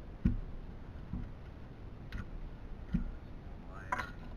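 Scattered light knocks and clicks, about one a second, from parts and tools being handled while a DLP television is taken apart, with a brief higher-pitched sound about four seconds in.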